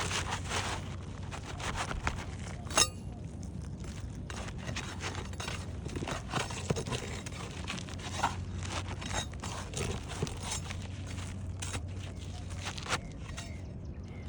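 Scattered scrapes, crinkles and clicks of hands and tools working asphalt roof shingles, with one sharp click about three seconds in, over a steady low hum.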